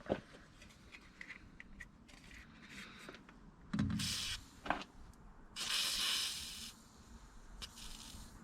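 Small clicks and a knock of metal tools being handled, then two short bursts of hiss, the longer lasting about a second.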